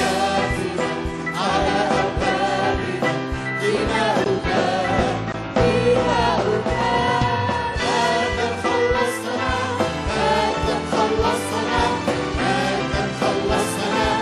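Live church worship music: singers backed by a band with a steady drum beat performing an Arabic praise song, the congregation singing along.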